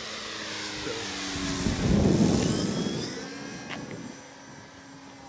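Electric motor and propeller of a 35% Krill Extra 330SC RC aerobatic plane passing by. The sound rises to a peak about two seconds in, then drops in pitch and fades as the plane moves away.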